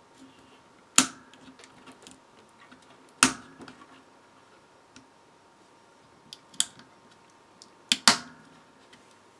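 A plastic piece being pressed and handled on an amplifier's mains transformer makes sharp clicks: one about a second in, one after three seconds, a lighter one after six seconds, and two in quick succession near the end, with faint ticks between.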